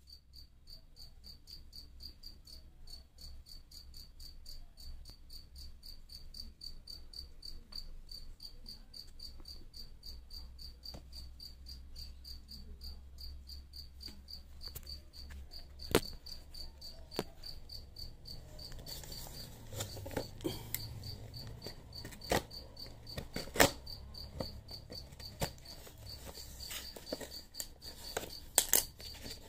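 Crickets chirping: a steady, fast-pulsing high chirp throughout. From about halfway in, sharp clicks and rustles of a cardboard parcel being handled. Near the end, scissors start cutting into the parcel's wrapping.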